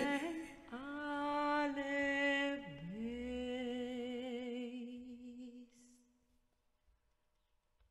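A woman's voice singing softly and wordlessly, holding a few long notes with a slow vibrato. The sound fades out about five and a half seconds in.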